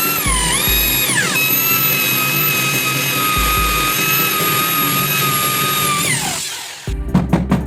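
Electric power tool motor whining. Its pitch dips and rises twice in the first second or so, holds steady for about five seconds, then winds down and stops near the end. Background music runs underneath, and a beat comes in just after the motor stops.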